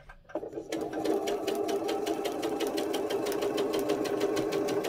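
Janome sewing machine starting up a moment in and then stitching steadily through the pieced fabric squares, with a rapid, even ticking of the needle strokes.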